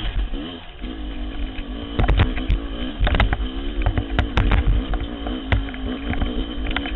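TM250 enduro dirt bike engine under load on a steep climb, its revs rising and falling over and over, heard from a helmet-mounted camera. Frequent sharp knocks come in from about two seconds on as the bike strikes rocks and roots.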